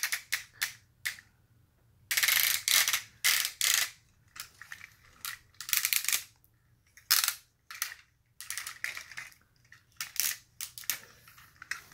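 Plastic parts of a Tobot V transforming toy robot clicking, snapping and rattling in irregular bursts as it is handled and folded.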